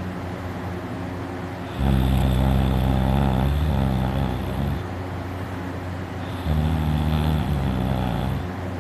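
A person snoring loudly during sleep: two long, low snores, the first starting about two seconds in and lasting about three seconds, the second shorter, near the end. The snorer puts the sound down to his uvula vibrating.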